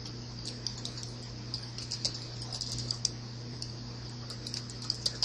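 Typing on a computer keyboard: light, irregular key clicks, quickening in the middle, while the card is being looked up.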